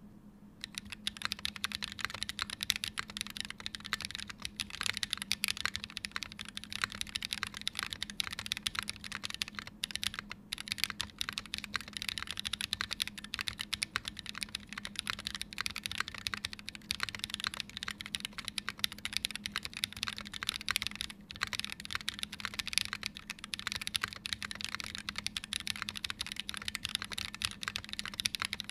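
Continuous fast typing on a Wilba.Tech Thermal mechanical keyboard with Holy Panda tactile switches, lubed with Krytox 205g0 and filmed, under GMK ABS keycaps on an aluminium plate. A dense stream of keystroke clacks, with short pauses about ten and twenty-one seconds in.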